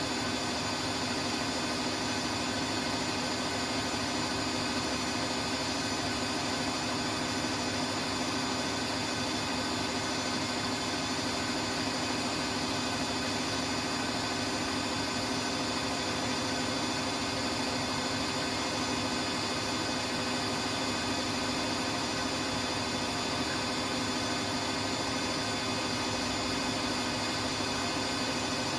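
Siemens iQ washing machine running steadily: an even motor hum with a few constant tones over a hiss, holding the same level and pitch throughout.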